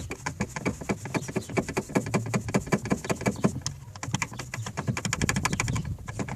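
Door check strap (door limiter) of a VAZ car clacking in a quick run of sharp clicks, several a second, as the half-closed door is worked back and forth. The clacking comes from play between the limiter and its bracket at the pin, the cause of the metallic knock over small bumps.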